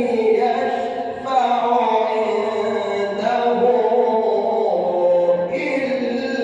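A man reciting the Quran in the melodic mujawwad style, drawing out long sung notes that slide slowly in pitch, with a short break for breath about a second in.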